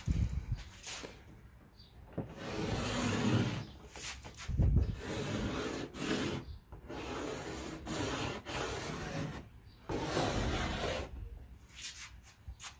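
A stick of chalk scraping across a chalkboard-painted car hood as letters are written. It comes as a series of strokes a second or two long, with short pauses between them.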